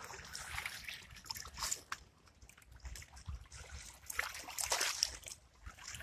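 Small sea waves washing and sloshing over stones at a rocky shoreline, with a surge of splashing at the start and a larger one about four seconds in.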